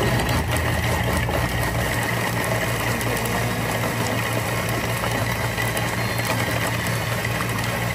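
Steady low mechanical hum with a faint high whine, unchanging throughout.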